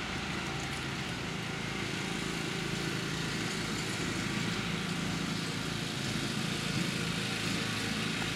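A steady, even motor drone runs throughout with no breaks or changes.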